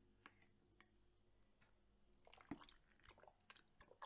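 Slime being squished, giving soft wet clicks and pops: a few scattered clicks, then a denser run of sticky crackles from about two seconds in.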